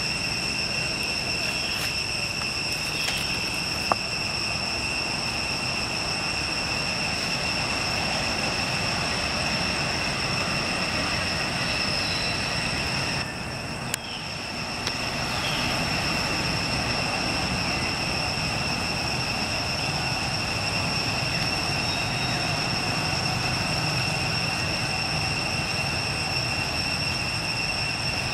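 Steady outdoor background noise, a continuous even hiss with a constant high-pitched whine over it. A single click about four seconds in, and a brief dip with a click near the middle.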